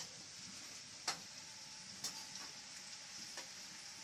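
French beans deep-frying in hot oil in a kadai, a steady sizzle, the beans nearly done. Three sharp clicks of a utensil on the pan cut through it.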